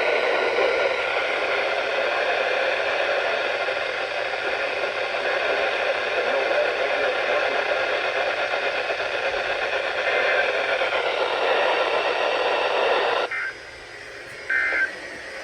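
Loud, steady static hiss from a weather radio receiver. It cuts off suddenly about 13 seconds in, and a brief two-pitched electronic beep follows near the end.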